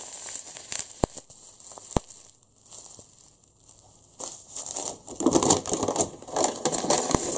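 Plastic food packets crinkling and rustling as they are handled. There are a couple of sharp clicks in the first two seconds, then a brief lull, then louder, denser rustling through the second half.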